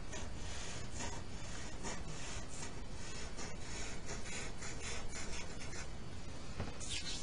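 Black Sharpie marker's felt tip scratching across paper in short strokes, about two or three a second, as it draws a zigzag furry outline.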